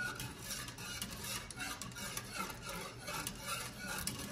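Wire whisk stirring a thickening pudding mixture in a metal pot, scraping and tapping against the pot in a steady rhythm of about three strokes a second. The pudding is being kept moving as it heats so it doesn't burn or clump.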